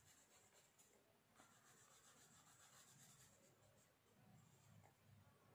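Faint scratching of a felt-tip sketch pen colouring in on paper, in repeated short strokes.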